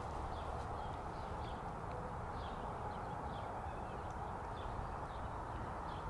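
Quiet outdoor ambience: a steady low background rumble, with faint short high bird chirps about once a second.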